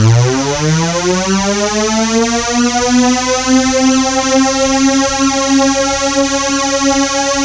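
Loud synthesized tone that glides up in pitch for about the first three seconds, then holds one steady note.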